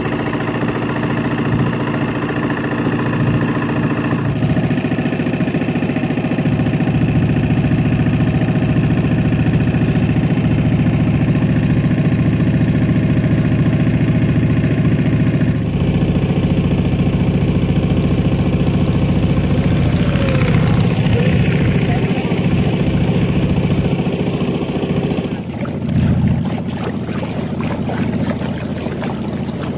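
Motor boat engine running steadily under way, its pitch shifting abruptly a few times. Near the end the engine sound gives way to rougher, gusty wind noise on the microphone.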